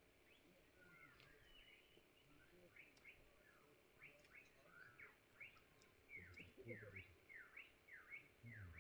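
Small birds calling in bushland: many short, quick chirps that grow busier about halfway through, heard faintly. A faint low rumble comes in twice near the end.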